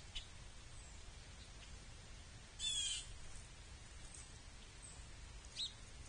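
Wild songbirds calling at a backyard feeder: one call of under half a second about two and a half seconds in, and a short chirp near the end, over faint outdoor background.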